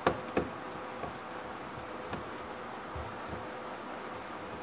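Screwdriver driving screws into a TV power supply board on its metal chassis, the tip clicking against the screw heads and metal: two sharp clicks near the start, then a few faint ticks. A steady faint hum and hiss sit underneath.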